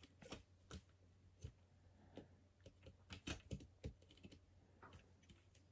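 Faint, irregular clicks and taps of small plastic LEGO pieces being handled and pressed together.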